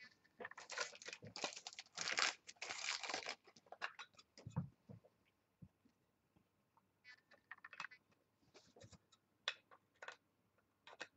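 Trading cards and plastic being handled: a few seconds of dense crinkling and rustling, then scattered light clicks and taps as a card is fitted into a clear plastic card holder.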